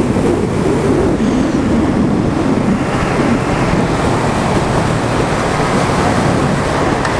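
Steady wind rush on a motorcycle-mounted camera microphone while riding at highway speed, with the motorcycle's engine faintly underneath.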